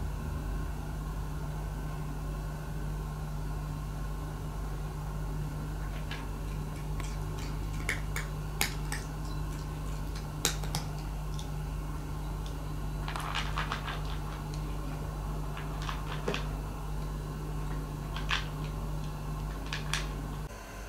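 A cat eating from a ceramic food bowl: scattered sharp clicks and crunches from about six seconds in, over a steady low hum.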